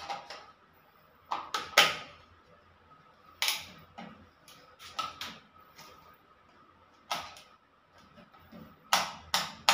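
Sharp plastic clicks from a two-gang wall switch and its snap-on cover plate being pressed and handled, coming in clusters of two or three, about a dozen in all.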